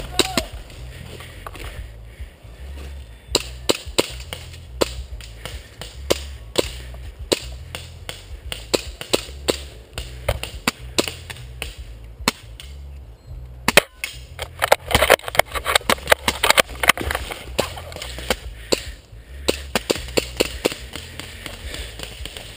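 Footsteps crunching through dry leaf litter and twigs: a string of sharp snaps and clicks, at times at walking pace and crowding together about two-thirds of the way in, over a low rumble of wind and handling on the microphone.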